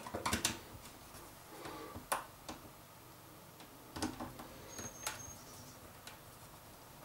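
Faint scattered clicks and rustles of electrical cable being handled and fitted into an inverter drive's terminals and earth clamp: a quick cluster of clicks at the start, then single clicks about two, four and five seconds in.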